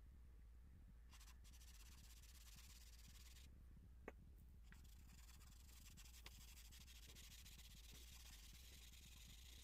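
Faint scratching and rubbing of charcoal on paper, dense and uneven, over a low steady hum, with a small click about four seconds in.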